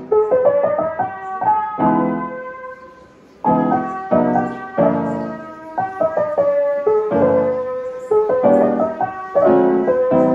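Background music: a piano playing a melody over chords, easing off to a quiet moment about three seconds in before the next phrase begins.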